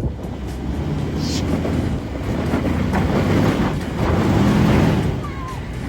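Off-road vehicle engine running under load on a trail climb, growing louder toward the middle and latter part, with wind on the microphone.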